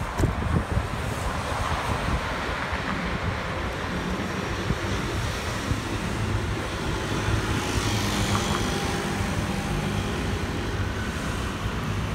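City street traffic noise heard from a moving bicycle: a steady rumble of motor vehicles on the road, with wind buffeting the microphone that settles after the first second. A passing vehicle's engine hum is steadier through the middle.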